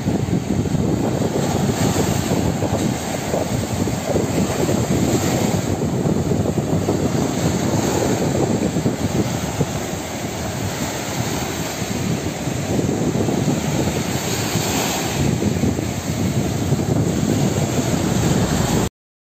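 Steady roar of sea surf washing onto a sandy beach, mixed with wind rumbling on the microphone, swelling and easing a little, then cutting off suddenly near the end.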